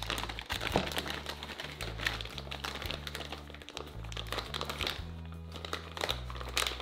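Clear plastic bag crinkling and rustling as hands open it and handle the part inside, over background music with a low bass line.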